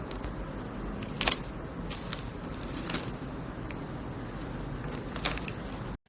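Steady low rumble from a Panasonic front-load washing machine, with about six sharp clicks scattered through it.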